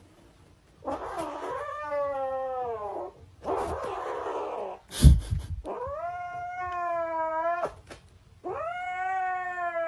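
A cat yowling in three long drawn-out calls, each starting rough and noisy before settling into a steady wail. A single sharp knock comes about five seconds in.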